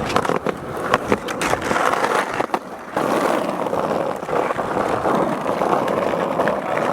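Skateboard wheels rolling on concrete, with sharp clacks and knocks of the board and trucks over the first few seconds. After that the wheels run on as a steady rolling rumble.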